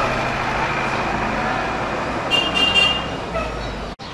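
Traffic noise with a brief, high horn toot a little past two seconds in; the sound cuts off abruptly near the end.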